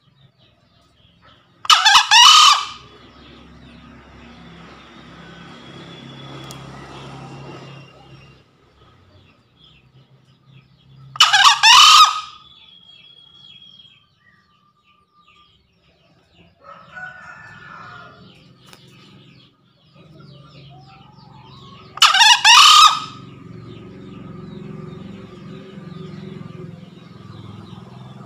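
Male green junglefowl crowing three times, about ten seconds apart, each crow a loud call of about a second. It is the cock's call to a rival male.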